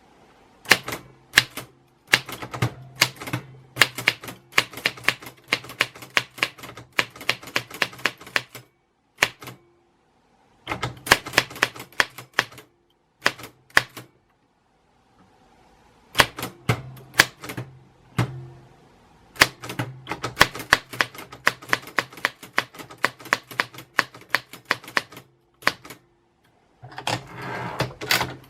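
Typewriter keys struck in quick runs of sharp clacks, several a second, broken by a few pauses of a second or two. Near the end comes a softer rasping stretch.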